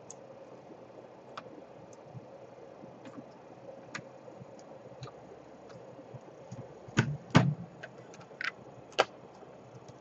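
Hands working over a laptop's plastic keyboard and top case: scattered light clicks and taps, then a few louder sharp knocks about seven seconds in and again near nine seconds.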